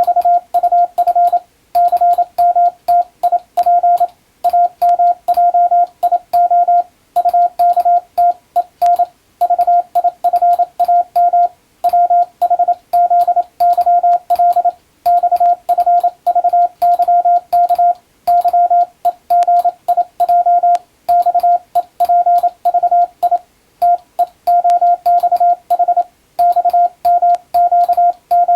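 Morse code (international CW) sent with an electronic keyer: a steady single-pitch beep keyed on and off in quick dots and dashes, grouped into characters and words by short pauses, with a light click at each keying.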